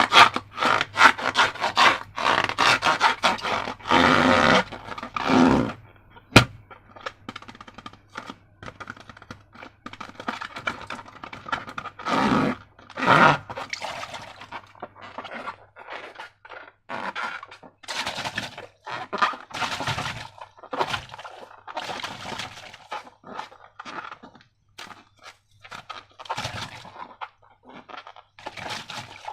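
Slime being worked by hand in a container: a steady stream of irregular wet scraping, squishing and sticky crackling, loudest around twelve to thirteen seconds in.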